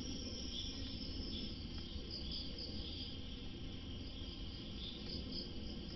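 Wire whisk stirring dry flour in a plastic tub: a soft, continuous scratching and rustling. A steady high-pitched background hiss and a low hum run underneath.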